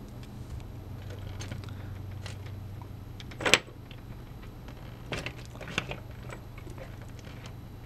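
A cat moving over papers on a workbench, with light scuffling and a single sharp knock about three and a half seconds in as it leaves the bench, followed by a few small clicks, over a steady low hum.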